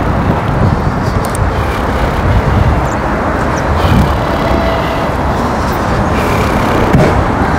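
Steady street traffic noise, a continuous roar of road vehicles.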